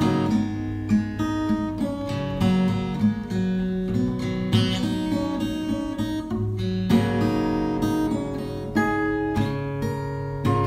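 Background music: acoustic guitar strummed and plucked, with chords changing every half second or so.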